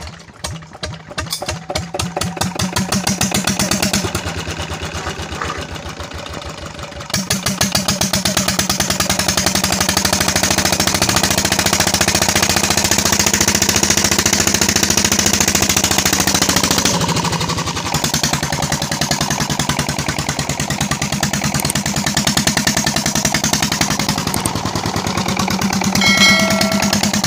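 Hand-cranked Petter single-cylinder diesel engine catching and starting, its firing beats growing louder over the first few seconds. It then runs steadily while driving a tubewell water pump. A short chime of clear tones sounds near the end.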